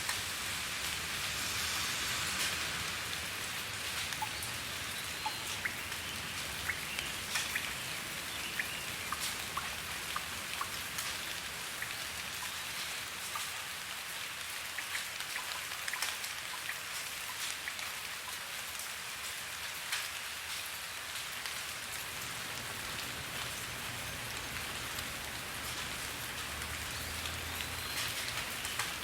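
Steady rainfall: a constant hiss with many separate drops ticking and pattering on a surface.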